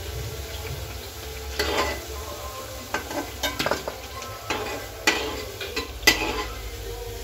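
Cabbage-and-gram-flour pakoras frying in hot oil with a steady sizzle, while a utensil clatters against the pan several times as they are stirred and turned.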